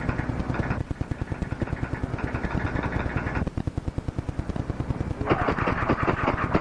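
Rapid, even mechanical clicking, about ten clicks a second, in a dispatch-room recording. A louder, busier stretch of noise comes in about five seconds in.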